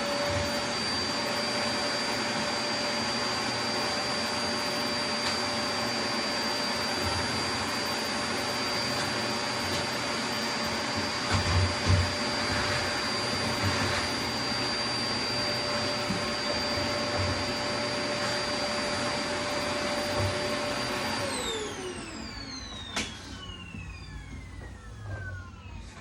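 Vacuum cleaner running with a steady high motor whine, then switched off about 21 seconds in, its motor winding down in a falling whine. A sharp click follows a couple of seconds later.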